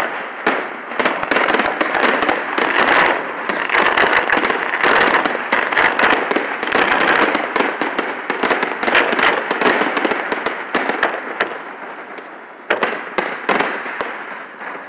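Fireworks display: a dense, rapid crackling and popping of many shells bursting at once. It slowly dies away toward the end, where a few separate louder bangs stand out.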